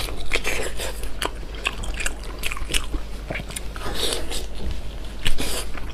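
Close-up biting and chewing of Chinese blood sausage, heard as a dense, irregular run of short mouth clicks and smacks.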